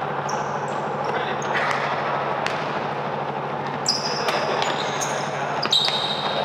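Basketball game play: a ball bouncing on the court and short, high sneaker squeaks, clustered in the second half, over a steady background noise.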